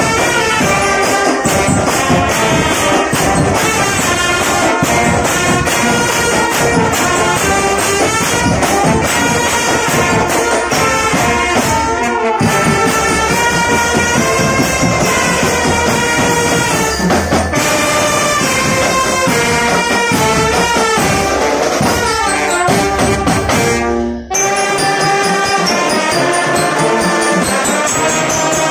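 Drum band playing a loud tune: trumpets and sousaphones over marching snare and bass drums. Near the end the music breaks off for an instant and starts again with a thinner low end.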